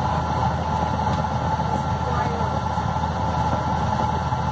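Waste vegetable oil burner running steadily: a constant rushing noise of the flame with a low hum underneath and a faint steady whine.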